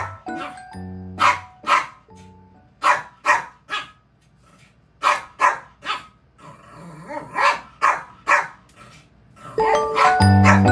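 A puppy barking in short, sharp yaps, mostly in quick runs of two or three, with background music in the opening second and again from about nine seconds in.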